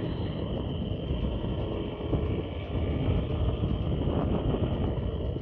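Small commuter motorcycle ridden at low speed through town traffic, heard from the rider's seat: its engine running steadily under a rumbling road and wind noise.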